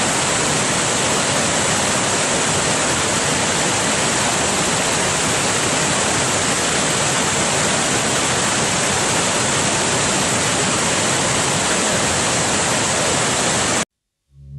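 Waterfall in flood: a swollen torrent of whitewater pouring over rock slabs as a steady, dense rush of noise. It cuts off suddenly near the end.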